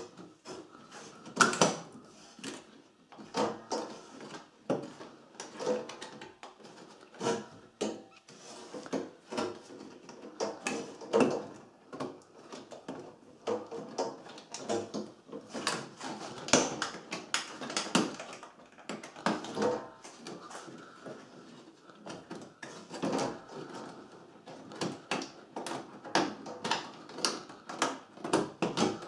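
Plastic multi-pin wiring connectors and loom wires being handled and pushed onto a washing machine's control board: irregular clicks, knocks and rustling.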